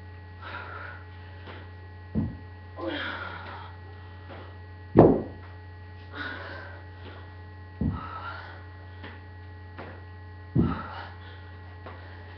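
Steady electrical hum, with a heavy thud about every three seconds as a foot plants on the concrete floor in side-to-side lunges, four in all, the loudest about five seconds in. Hard breathing comes between the thuds.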